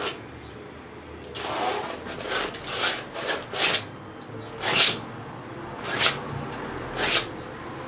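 Palette knife scraping oil paint, in a series of short, rasping scrapes roughly a second apart.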